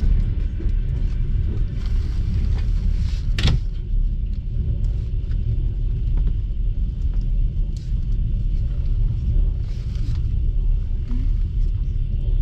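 Passenger train carriage running along the line, heard from inside the compartment: a steady low rumble of wheels on rails, with one sharp click about three and a half seconds in and a few faint ticks.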